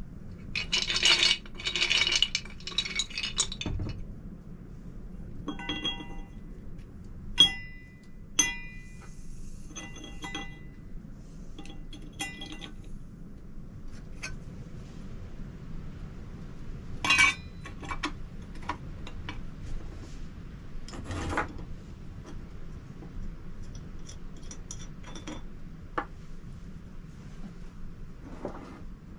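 Lumps of calcium carbide clattering into the brass chamber of an old miner's carbide lamp, then scattered clinks, some of them ringing, as the lamp's brass parts are handled and fitted together. The rattle is densest in the first few seconds; the clinks thin out toward the end.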